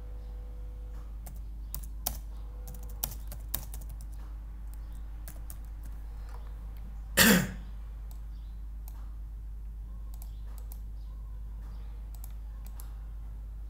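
Computer keyboard keystrokes and clicks, scattered and irregular. About seven seconds in, a person coughs once, briefly, the loudest sound. A steady low hum runs underneath.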